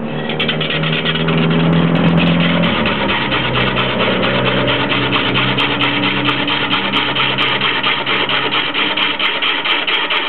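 Wood lathe spinning a large wooden blank while a hand-held turning tool cuts into it: a loud, continuous rasping scrape that pulses rapidly and evenly, over the lathe's running drone.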